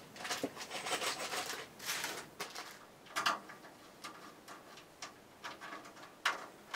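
Rustling of a plastic bag of small parts for the first couple of seconds, then scattered light clicks and taps as small clips are handled and fitted onto standoffs on the computer case frame.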